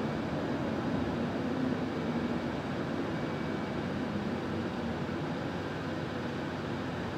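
Steady engine and road noise of a Solaris Urbino 18 articulated city bus on the move, heard from inside the passenger cabin.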